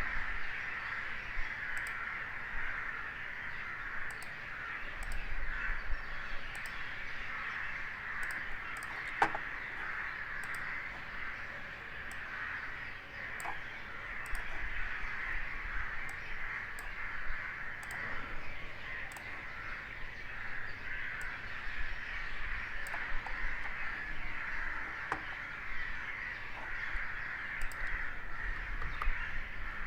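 Steady background hiss with faint, scattered clicks.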